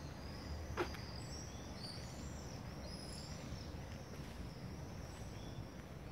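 Small songbirds chirping and singing, many short high chirps overlapping throughout, over a steady low outdoor rumble. One sharp click stands out about a second in.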